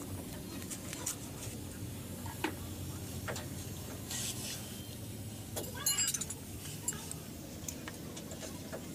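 Small metal parts and hand tools handled and set down on a concrete floor: light clicks and taps, with a short metallic clatter about six seconds in, over a steady low hum.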